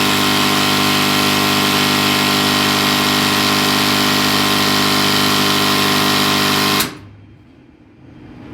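100 kVA Recon servo voltage stabilizer humming loudly: a steady electrical buzz with many even overtones and a hiss above it, which cuts off suddenly near the end. The hum is still there after the contacts were cleaned, and the technician puts it down to corrosion on the contacts.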